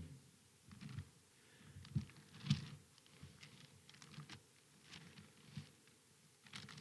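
Faint rustling and soft clicks of Bible pages being leafed through, in irregular short bursts.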